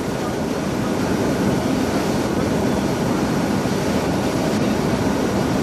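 Steady, even in-flight cockpit noise of an Antonov An-124 Ruslan, the drone of its four turbofan engines mixed with rushing air, unchanging throughout.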